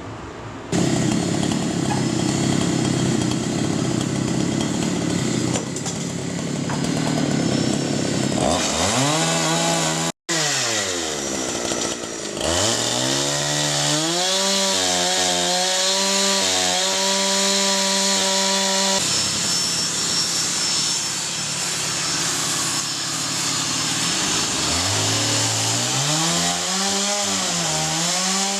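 Electric power tools in a woodworking shop running in a string of quick cuts. Stretches of harsh cutting noise alternate with a motor whine that spins up, holds a steady pitch and winds down. There is a brief dropout about ten seconds in.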